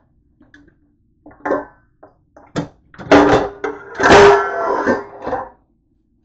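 Dishes clattering in a dish drying rack as a stainless steel bowl and a plate are pulled out past a plastic colander: a few light knocks, then a louder run of clanks about three seconds in, with the metal bowl ringing briefly.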